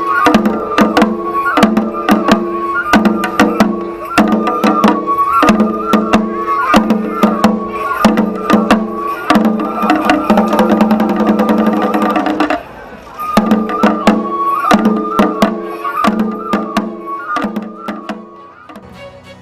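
Shishimai lion-dance accompaniment: a taiko drum beating a quick, regular rhythm under a steady pitched melody. The music breaks off briefly about two-thirds of the way through, then resumes and fades near the end.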